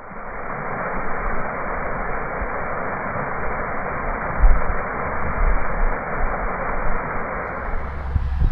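Steady hiss of static-like noise, muffled with its top end cut off, fading in at the start over a faint low rumble; typical of the faulty audio track.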